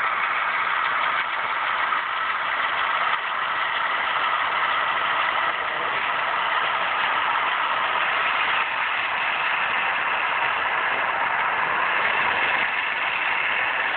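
HO-scale model train, a rotary snowplow pushed by diesel locomotives, running steadily along the track with an even mechanical hum and rush.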